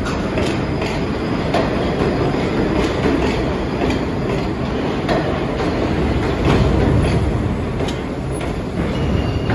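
R62 New York City subway train rolling past along the station track, its wheels clacking over the rail joints under a steady rumble, with a brief thin wheel squeal near the end.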